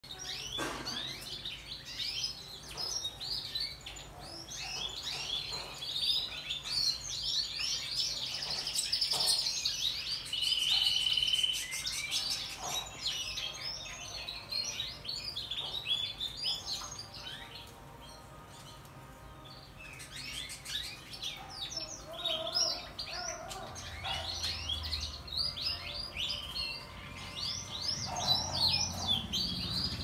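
Domestic canary singing: fast runs of chirps and rolling trills, with one long whistled note just after ten seconds and a short lull a little past the halfway mark before the song picks up again.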